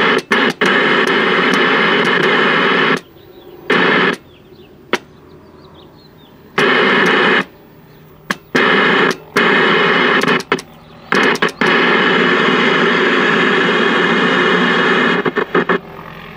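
Loud static hiss from a vintage RCA Victor tube TV's speaker on empty channels. It cuts off abruptly and comes back several times, with clicks, as the channel selector is turned from channel to channel, because the set's sound mutes on some channels and not on others.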